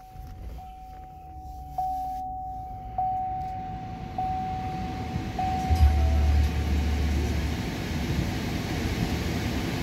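A vehicle warning chime repeats about once every 1.2 seconds, then the 2016 Chevrolet Suburban's 5.3-litre V8 starts with a low rumble about six seconds in and settles into an idle.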